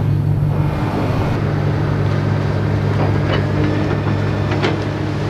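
Hydraulic excavator's diesel engine running steadily with a low hum as the bucket digs a trench in wet mud, with a couple of short sharp knocks past the middle.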